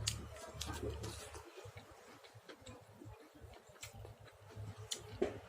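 Eating sounds: chewing and lip-smacking on chicken, irregular small wet clicks at uneven intervals, the sharpest near the start and near the end.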